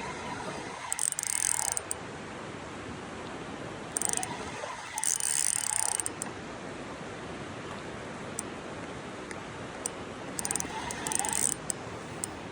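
Spinning fishing reel whirring and clicking in four short bursts as line is worked, over a steady background rush of river water.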